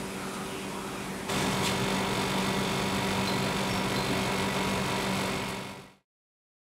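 Steady background noise with a constant low hum, stepping up in level about a second in, then fading out to silence near the end.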